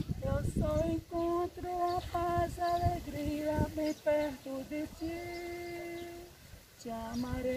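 A woman singing a slow melody, moving from note to note with one long held note in the middle and a brief pause near the end.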